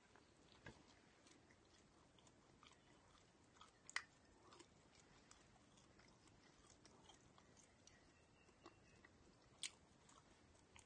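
Faint chewing and biting on a spicy pork floss snack, with scattered small crunchy clicks; the sharpest comes about four seconds in and another near the end.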